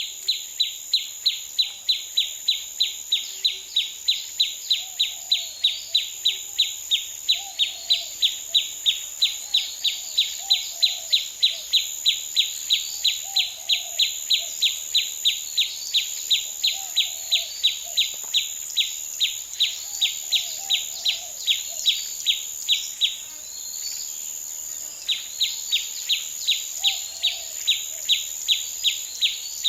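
Birds chirping over a steady, high-pitched insect drone. One sharp chirp repeats about three times a second; it breaks off for about two seconds near the end, then resumes. Fainter, lower calls come and go beneath it.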